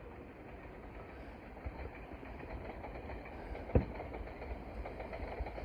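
Steady low rumbling background noise with one sharp bang a little past the middle.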